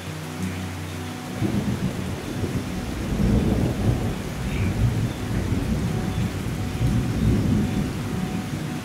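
Rolling thunder that builds about a second and a half in and rumbles on for several seconds over steady rain.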